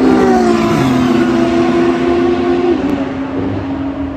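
A Ferrari and a second sports car passing at speed at the end of a drag run, their engine notes dropping in pitch as they go by, then holding steady as the cars pull away and slowly fade.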